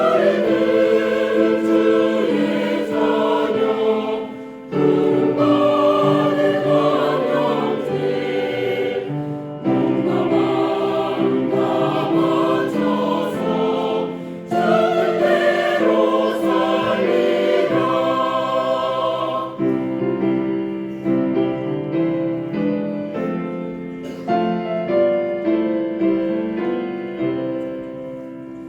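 Church choir singing a Korean hymn in parts, in phrases of about five seconds with brief breaks between them.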